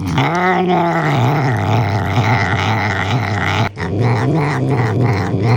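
Domestic cat growling over its food: a long yowl rising and falling in the first second, then a low, steady growl. It is the cat's food-guarding growl while it eats.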